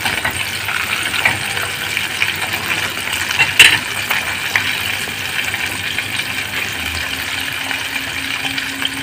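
Coated chicken deep-frying in hot oil in a stainless steel pot, a steady sizzle and crackle. About three and a half seconds in, a sharp metal clink, the tongs set down on a plate.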